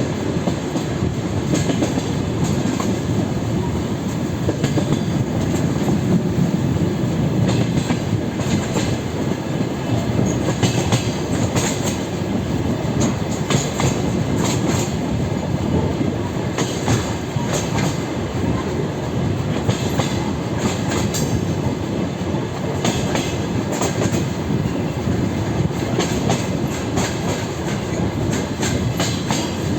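Wheels of a DR1A diesel multiple unit clattering over rail joints at running speed, over a steady low rumble of the running gear. The clicks come irregularly, a few every second or two.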